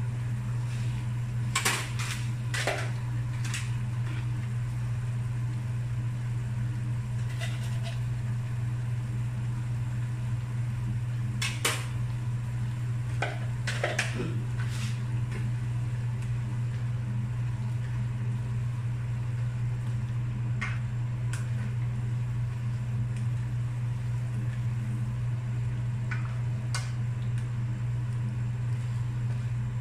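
A steady low hum from a running kitchen appliance, with scattered light clicks and taps of a utensil against a non-stick frying pan of vegetables, a few close together near the middle.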